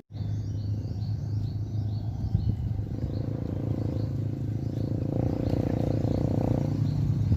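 A steady low motor hum, growing somewhat louder through the middle, with a run of short high bird chirps over it in the first couple of seconds.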